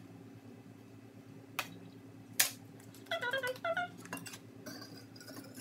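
A spoon scooping brown sugar from a plastic tub and tapping against it, giving two sharp knocks, the second the loudest. About three seconds in come a few short pitched squeaks that rise and fall.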